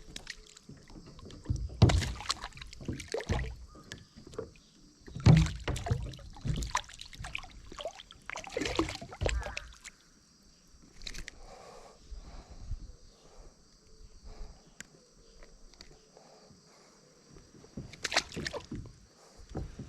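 Water sloshing and splashing in irregular bursts, with a few heavy low thumps among them.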